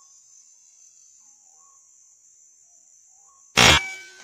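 A single sharp crack from an air rifle firing, about three and a half seconds in, at a white-breasted waterhen (ruak-ruak) over a steady high drone.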